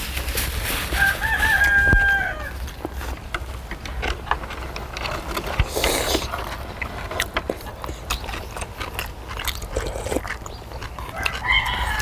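A rooster crowing twice: a few wavering notes running into a long held note about a second in, and again near the end. Between the crows, short clicks of chopsticks and spoons against bowls.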